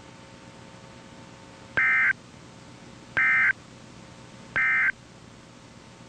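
NOAA Weather Radio's SAME end-of-message data signal: three short bursts of digital data tones, each about a third of a second long and about a second and a half apart, over a faint steady radio hiss. The bursts mark the end of the Required Weekly Test broadcast.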